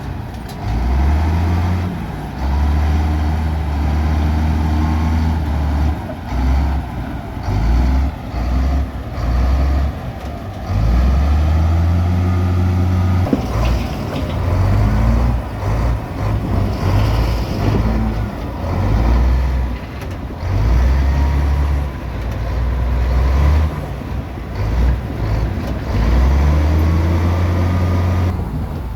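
Heavy diesel engine of earthmoving machinery at work, a low rumble that swells and drops repeatedly as the load changes, with scattered clanks and knocks.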